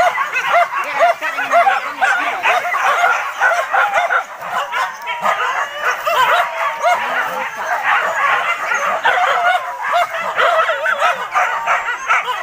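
A pack of hunting dogs yelping and whining nonstop, many short high calls overlapping, excited by a wild boar hunt.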